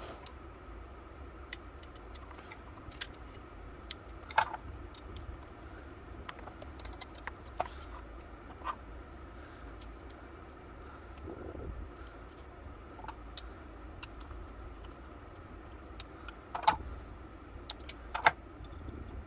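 Small metal clicks and clinks from handling an antique percussion pistol's lock with locking pliers clamped to it, scattered through, with a few louder clicks about four seconds in and near the end.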